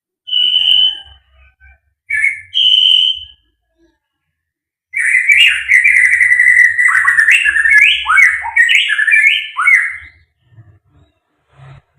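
White-rumped shama singing: two short clear whistles in the first few seconds, then from about five seconds in a long run of rapid, varied phrases with sliding downward notes, which stops near ten seconds.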